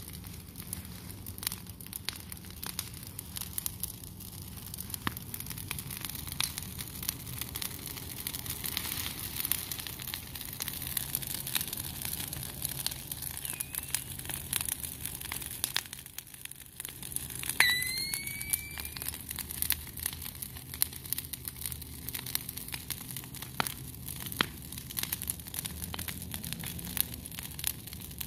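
Brush pile of freshly cut green leafy branches burning in tall flames, crackling with many sharp snaps and pops over a steady hiss. About two-thirds through comes the loudest moment: a sharp snap followed by a brief high chirp.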